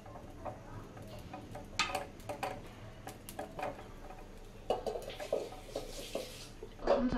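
Light knocks and clinks of an earthenware chitoi pitha mould and its clay lid as rice batter is ladled in and the lid is set on, with a brief hiss near the end.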